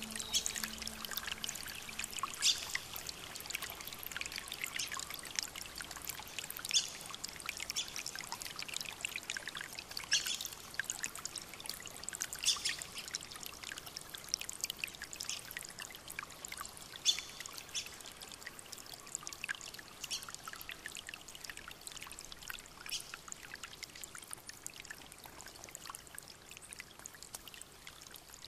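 Running water trickling and splashing, a steady hiss with irregular sharp splashes, slowly fading away. The last held note of a new-age music piece dies out in the first couple of seconds.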